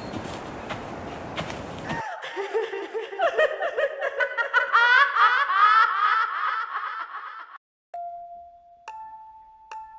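A steady rustling hiss cuts off suddenly about two seconds in. An eerie, layered laugh-like sound of many sliding pitches follows, swelling and then stopping. Near the end come two held bell-like tones, the second higher, with a few sharp ticks.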